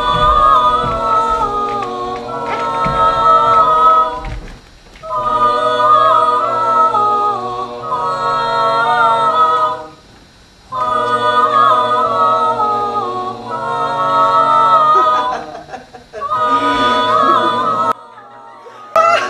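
Unaccompanied voices singing a slow a cappella piece in long held phrases, with short pauses between the phrases and a sudden cut-out near the end.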